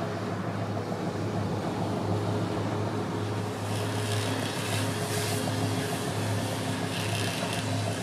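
A large engine running steadily with a low hum, with brief bursts of hiss about four seconds in and again near the end.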